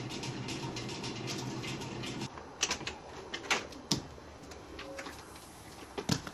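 A steady low hum that cuts off about two seconds in, followed by several sharp clicks and knocks from a storm door being pushed open and swinging, and steps on the porch.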